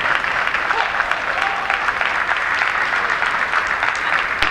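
Spectators in a large hall applauding, a dense, steady clapping, with one sharper knock just before the end.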